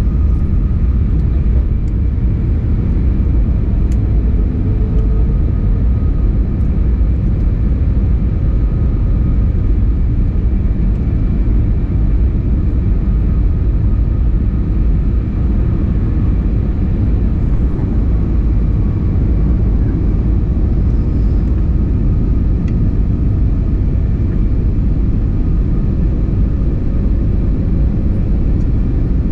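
Steady engine and airflow noise inside the cabin of an Airbus A320neo airliner during descent: a deep, even rumble with faint steady higher tones over it.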